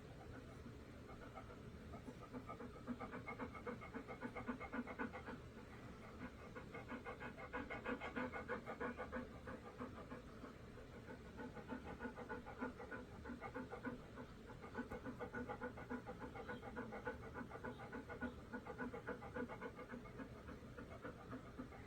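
A dog panting rapidly and steadily, quick in-and-out breaths repeating several times a second, swelling into stronger bouts with short softer lulls between them.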